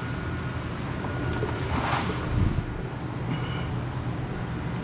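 Warm engine oil draining from the oil pan into a bucket, a steady pour over a low hum, with a brief rustle about two seconds in.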